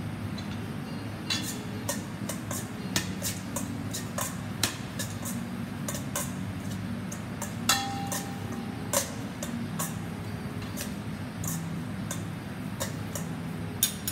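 Metal serving utensils clinking against a stainless steel mixing bowl while salad greens are tossed in vinaigrette: irregular light clicks, with one ringing clink about eight seconds in.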